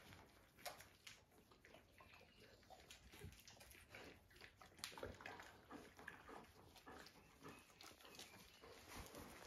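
Mother dog licking her newborn puppies clean, a string of faint, irregular wet clicks and smacks.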